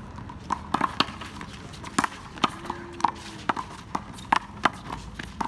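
One-wall handball rally: a quick, irregular series of sharp smacks as the small rubber ball is slapped by hand and bounces off the concrete wall and court.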